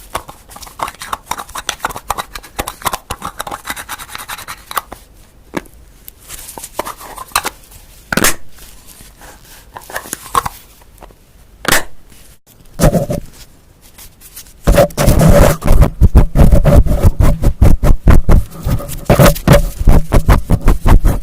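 ASMR trigger sounds made close to the microphone: scattered light scratches and clicks on objects, then from about fifteen seconds in a much louder, fast run of scratching and tapping.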